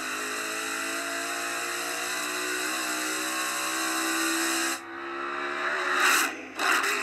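Turbocharged race car engine running under a loud hiss, its pitch slowly rising; the hiss cuts off suddenly about five seconds in, followed by two short loud bursts of noise near the end.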